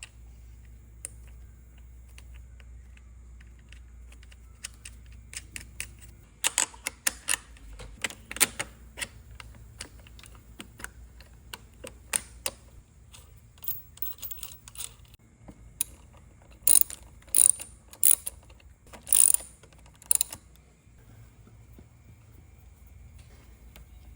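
Hand tools clicking and clacking against metal parts during engine reassembly, in irregular runs of sharp clicks, with a handful of louder clacks about two-thirds of the way through.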